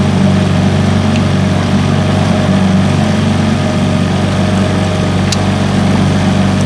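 Small engine running loudly at a steady speed while a shrimp pot is hauled up.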